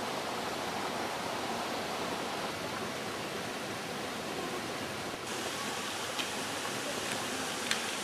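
Steady rushing of a mountain river and its waterfall cascade, an even wash of water noise, with a couple of faint ticks near the end.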